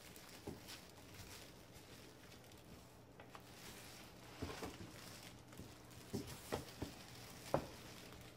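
Clear plastic bag crinkling and rustling as hands grip a small reflector telescope tube and lift it out of a cardboard shipping box, with a few soft, irregular bumps against the box, the sharpest near the end.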